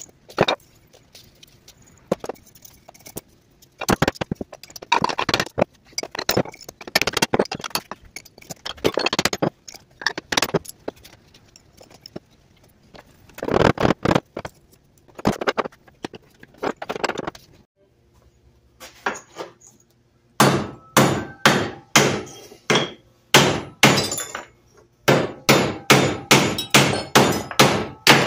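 Hammer striking aluminum scrap on the anvil of a cast-iron bench vise, breaking it up for melting, with metal pieces clinking. The blows come in irregular bunches at first, then settle into a steady run of sharp strikes about two a second from about twenty seconds in.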